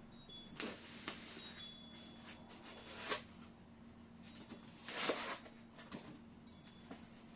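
Handling noise from fitting a computer power supply: scattered light knocks and rustles, the loudest about three and five seconds in, over a steady low hum.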